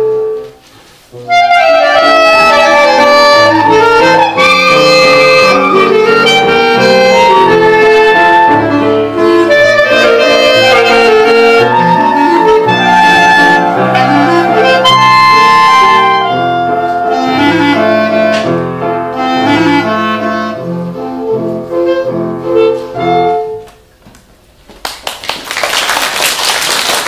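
Two clarinets playing a melody in harmony over grand piano accompaniment, the piece ending about 23 seconds in. After a short pause, applause starts near the end.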